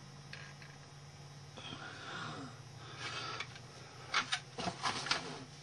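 Faint breathing close to the microphone over a low steady hum. From about four seconds in comes a quick run of sharp clicks and rattles as plastic model car parts and a kit box are handled.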